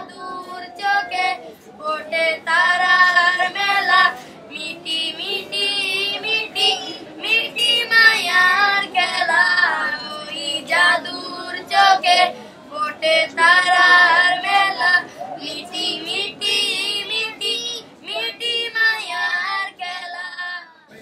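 A song sung by high voices, a child's or a woman's, in phrases with held, wavering notes and short pauses between lines.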